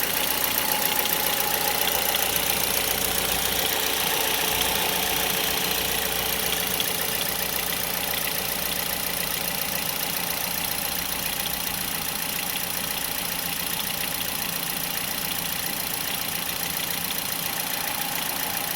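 Mazda 6 (GH) 2.0-litre four-cylinder engine idling cold, with a steady rapid knocking over its running: the knock the owner hears on a cold engine. It runs slightly louder for the first few seconds, then settles.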